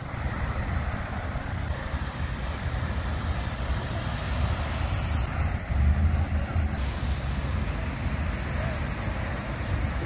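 Steady rush and splash of a tall water-fountain jet falling back into its basin, with wind buffeting the microphone in an uneven low rumble.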